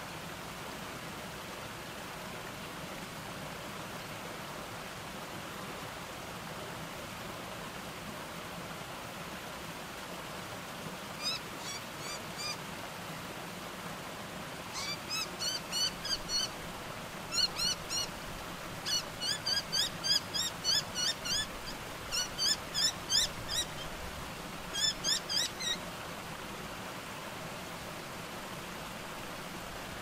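Steady rush of a small rocky garden cascade. Starting about a third of the way in and stopping a few seconds before the end, a bird calls over it in bouts of rapid, short, sharp notes, several a second.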